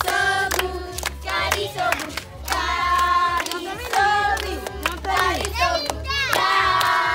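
Children and young women singing a clapping song together, with sharp hand claps in time.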